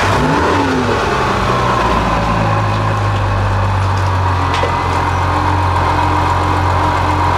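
Bentley's engine just after starting: the revs flare up and drop back in the first second, then it settles into a steady idle.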